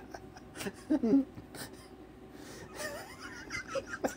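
Subdued laughter from a person: a short burst about a second in, then a faint, high, wavering laugh near the end.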